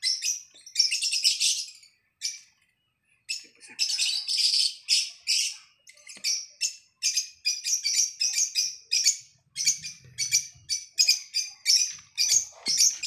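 Ballpoint pen scratching on paper while drawing lines: a run of short, irregular, high scratchy strokes, with a pause about two seconds in.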